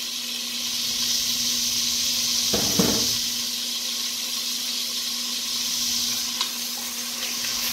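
Frozen carrot pieces sizzling in hot oil in an enameled cast-iron Dutch oven: a steady hiss, the oil spattering because the carrots are wet with ice. A short low thud about two and a half seconds in, and a few faint crackles near the end.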